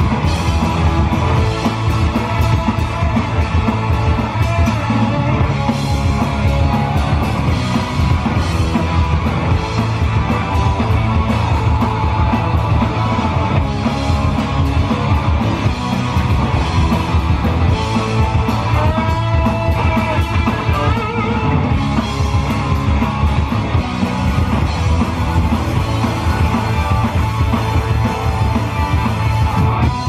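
Punk rock band playing live and loud: electric guitars, bass and drums, with vocals.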